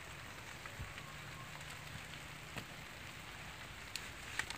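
Faint, steady outdoor hiss with a few sharp light ticks scattered through it.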